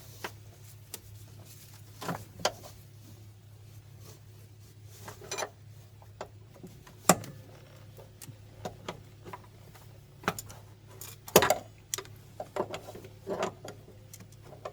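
Wrench and hand tools clinking and clanking on a steel bolt, at irregular intervals, with two louder clanks about seven and eleven seconds in.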